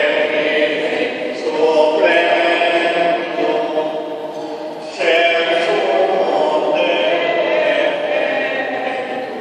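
Choir singing a hymn, several voices holding long notes in phrases that start afresh every few seconds.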